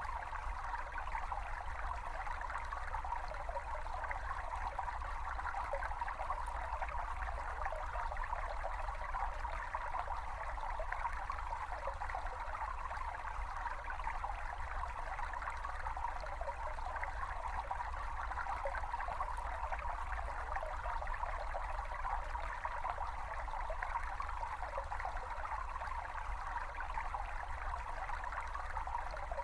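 A small brook babbling steadily, a constant trickling and gurgling of flowing water with no pause, over a faint low rumble.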